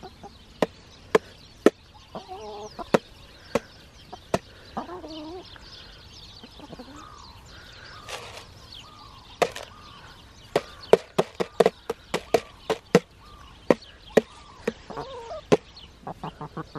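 Hens pecking grain from a hand-held plastic jar: their beaks strike the jar in sharp taps, scattered at first and coming thick and fast from about nine seconds in. Soft clucking runs between the taps.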